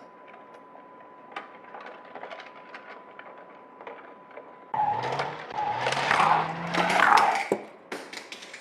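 Light scattered plastic clicks, then a loud car-engine revving sound starting suddenly near the five-second mark. It rises in pitch twice under a harsh hiss and fades after about three seconds.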